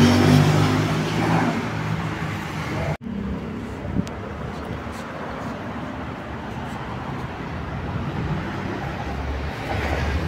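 A car engine running loud amid street traffic, cut off suddenly about three seconds in. Quieter steady traffic noise follows, with a single click a second later, and another engine rises near the end.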